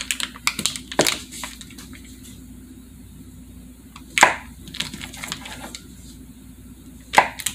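Knife slicing through a stick of butter and tapping down on the surface beneath: a few scattered knocks, several in the first second, single ones about a second and about four seconds in, and a pair near the end.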